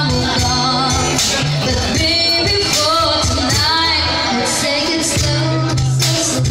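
A live band playing with a singer: a wavering sung melody over a bass line and cymbals.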